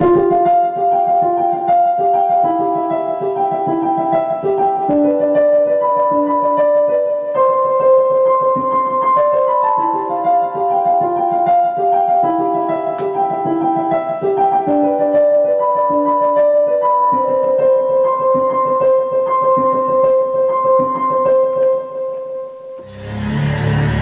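Korg X50 synthesizer playing its 'Korgmatose' program, a piano-like synth voice, in a melody of short alternating notes under longer held notes. Near the end the melody stops and a dense, low droning sound takes over.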